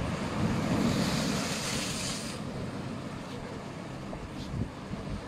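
Outdoor seafront ambience: a steady low rumble with a rush of hiss that swells and cuts off a little over two seconds in.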